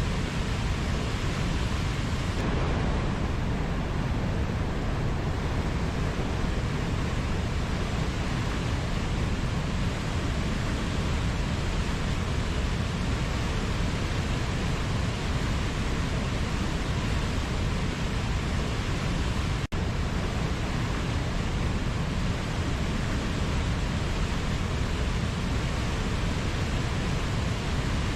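Waterfall: a steady, unbroken rush of falling water, heaviest in the low end, with a momentary drop-out about two-thirds of the way through.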